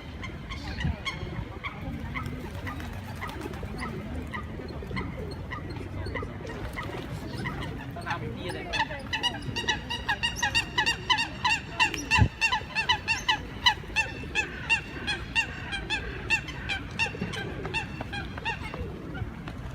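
Geese honking. A few faint, spaced calls come first, then from about eight seconds in a flock calls in a rapid run of short honks, about three a second, until near the end.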